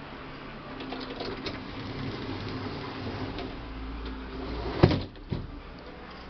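Wooden wardrobe doors being opened and handled, with light clicks and rustling, then a sharp knock just before five seconds in and a smaller one about half a second later.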